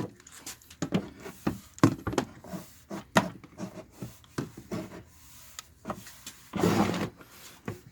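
Cutting compound being rubbed by hand onto a sanded plastic headlight lens with a polishing pad: irregular scuffs and light knocks, with one longer rub about two thirds of the way in.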